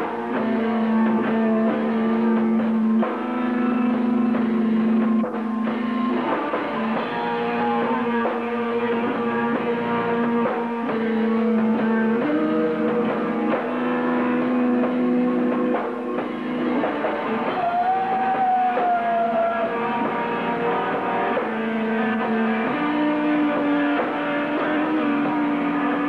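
Live rock band playing: guitars holding long, sustained notes that shift every few seconds over a drum kit, with a brief bent note partway through.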